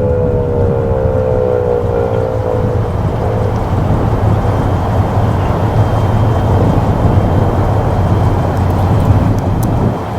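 Federal Signal 2001 electromechanical tornado siren winding down, its tone falling slowly and fading out about three seconds in. After that a loud, steady low rumble fills the rest.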